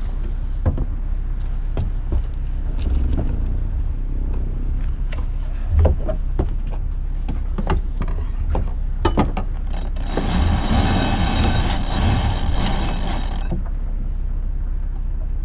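A sailboat's inboard engine idling with a steady low rumble, while lines and deck fittings give off scattered knocks and clicks as they are handled. About two thirds of the way through, a hiss lasts for about three seconds.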